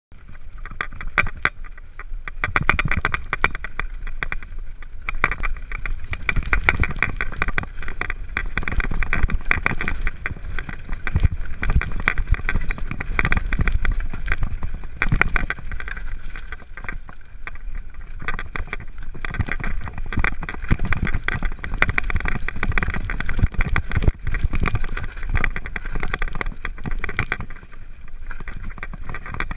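Mountain bike descending a loose, rocky trail: continuous clattering and rattling of the bike over the stones, with low wind rumble on the microphone of a body-mounted action camera.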